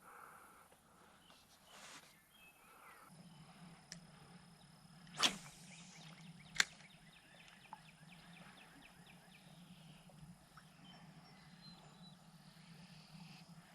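Spinning rod cast with a faint swish about five seconds in, a sharp click soon after, then the light rapid ticking of the spinning reel being cranked to retrieve the lure.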